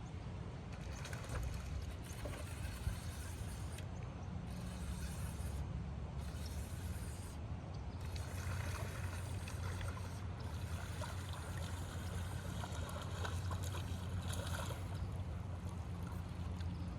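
A fishing boat's motor runs with a steady low hum, with water sloshing and splashing at the hull.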